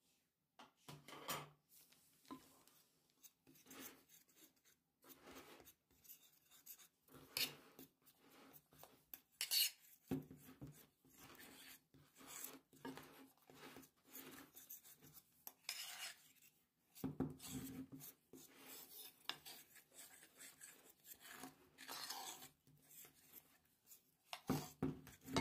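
A metal spoon stirring and scraping a flour and cornstarch breading mix against the sides of a bowl, in irregular scrapes and clinks.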